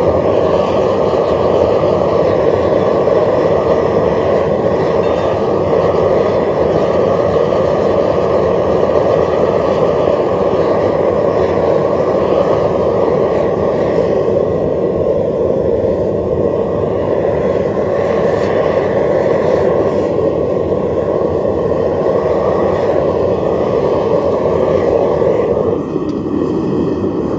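Propane burner firing a metal-melting furnace, a loud steady rushing flame noise. Near the end the sound drops and changes.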